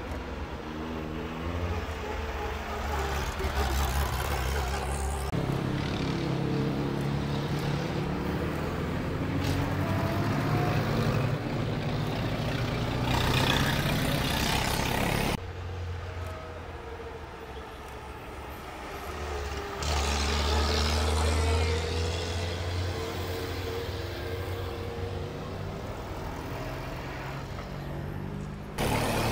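Engines of vintage cars driving past one after another at low speed, their pitch rising and falling as they pull away, with voices of onlookers.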